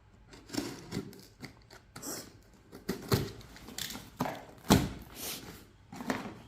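Cardboard shipping box being cut open and its flaps pulled apart: irregular scrapes, rustles and clicks, with a louder knock about five seconds in.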